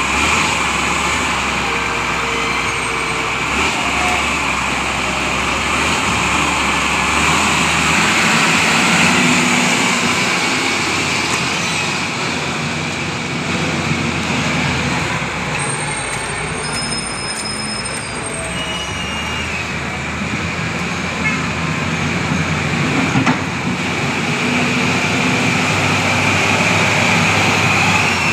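A heavy vehicle's engine running steadily, with a few faint short high whistles about halfway through.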